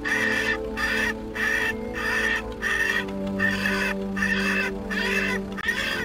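Recorded bird distress call played through a bird-dispersal vehicle's roof-mounted loudspeakers to scare birds off the airfield: a rapid string of short calls, about two a second.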